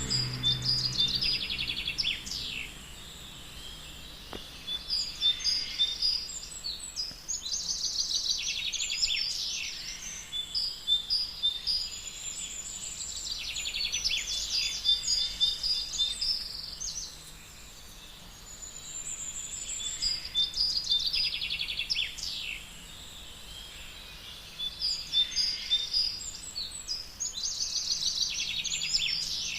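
Small birds singing: bouts of quick, high chirps and trills lasting two to four seconds, recurring every five to six seconds, over a faint steady background hiss.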